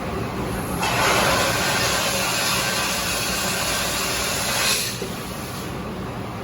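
Okuma VTM-120YB vertical turning center running through an automatic tool change. There is steady machine hum, and a loud hiss comes in about a second in and lasts about four seconds before it stops.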